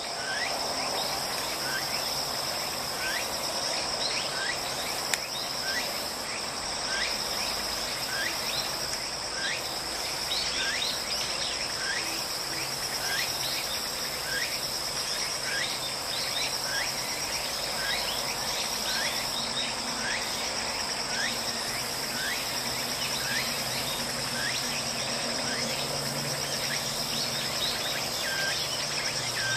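Outdoor insect chorus: a steady high-pitched drone, with short falling chirps repeated over and over. A single click about five seconds in.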